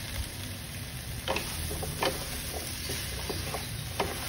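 Chicken and chayote slices sizzling steadily in a nonstick wok, with a few short knocks of wooden spatulas against the pan as they are stirred, one near the end.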